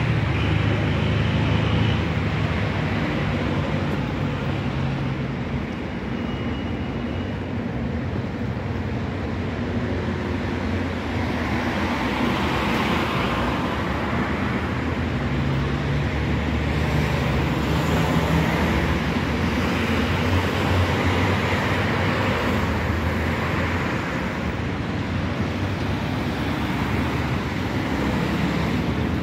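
Street traffic: cars driving past with their engines running, several vehicles passing one after another over a steady road noise.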